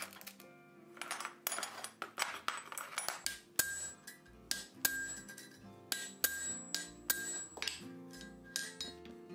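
Blacksmith's hammer striking hot iron on an anvil: a series of sharp metallic blows, several of them ringing on, over background music.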